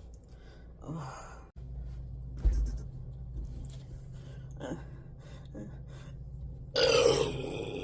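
Soft breathing and a low thump about two and a half seconds in, then a loud, rough burp lasting about a second near the end.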